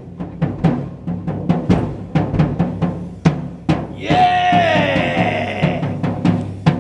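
Drum kit played in a solo, a quick, uneven run of kick drum and drum strokes. About four seconds in, a man's long shouted yell rises over the drums for nearly two seconds, sliding down in pitch as it goes.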